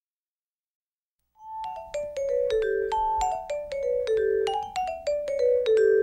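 Digital silence for about a second and a half, then a music intro of ringing mallet-percussion notes, vibraphone-like, playing a falling figure of about five notes over and over above a held low note.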